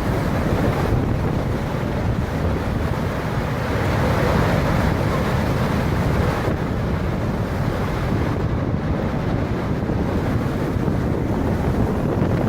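Strong storm wind buffeting the microphone, a steady heavy rush of noise.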